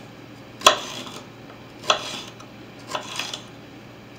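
Kitchen knife slicing a green bell pepper on a wooden surface: four sharp knocks of the blade meeting the wood, about a second apart, the last two close together.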